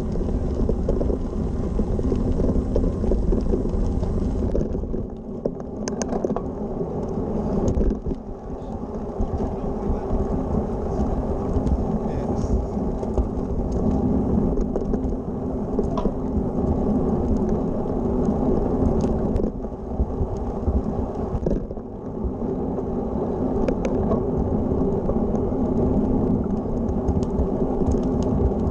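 Road bike on the move: steady wind rumble on the microphone mixed with the tyres rolling over a gravel track and then smooth asphalt. A few sharp small ticks come through.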